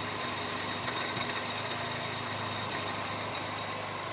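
Toyota 1.8L four-cylinder engine idling steadily. It is running lean at idle, a condition caused by restricted fuel injectors.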